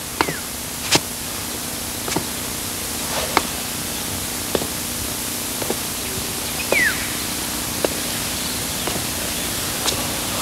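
Steady hiss, as from an old VHS soundtrack, with sparse faint clicks and two short falling chirps.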